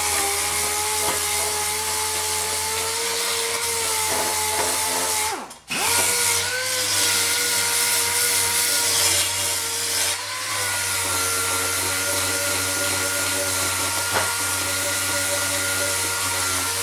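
Air-powered DA (dual-action) sander with 40-grit paper rubbing down fine body filler (stopper) on a mower deck: a steady whine over hissing air. It stops for a moment about five seconds in and starts again slightly higher.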